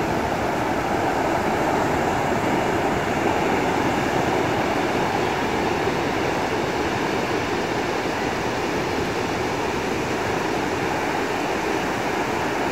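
Ocean surf breaking on a sandy beach, a steady, even roar with no letup.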